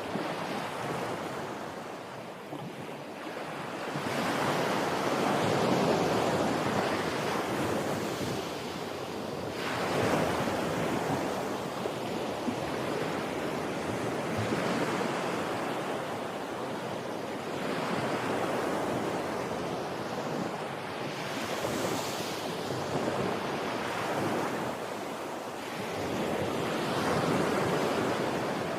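Ocean surf: waves breaking and washing in, the rushing sound swelling and ebbing about every four to five seconds.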